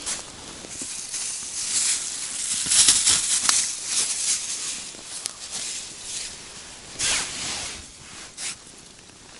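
Rustling and hissing scrapes of clothing and hands close to the microphone while a small fish is handled, with a short slap as the fish lands on the ice a few seconds in.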